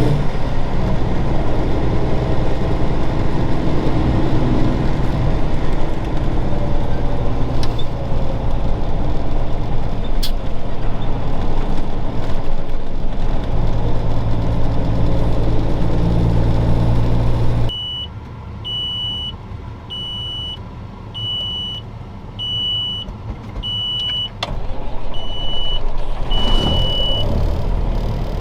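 A Cummins Signature Series diesel in a 1999 Peterbilt 379 runs steadily while driving, heard loud from inside the cab. About two-thirds of the way through, the engine and road noise drop away abruptly. A run of about seven short high beeps follows, roughly one every second and a half, before the noise builds again near the end.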